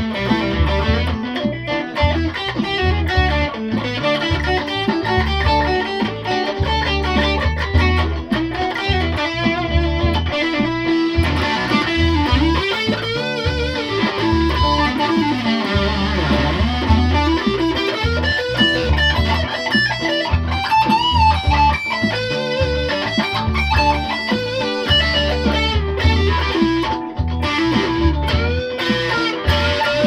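Electric guitar played through an amplifier: a continuous passage of riffs and lead lines with a pulsing low end, and string bends around the middle.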